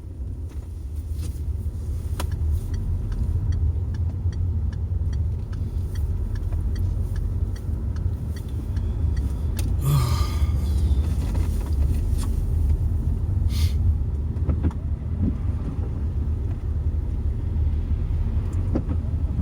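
Road noise of a moving car heard from inside the cabin: a steady low rumble of engine and tyres, with a brief louder rushing sound about ten seconds in.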